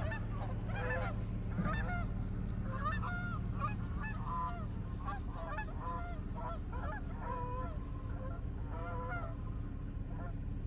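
Many honking bird calls, overlapping one after another as from a flock, over a steady low hum.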